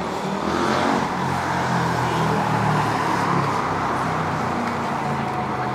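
A motor vehicle driving past close by, its engine getting louder about a second in and then easing off slowly. A thin steady whine starts near the end.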